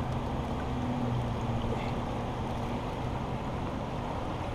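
Steady rush of river water and outdoor air, with a faint low hum that fades out about halfway through.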